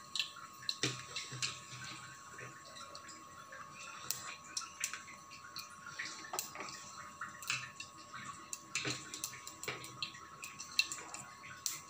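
Mustard and cumin seeds sizzling in hot oil, with scattered sharp pops and crackles as the mustard seeds splutter: the tempering in the oil is under way.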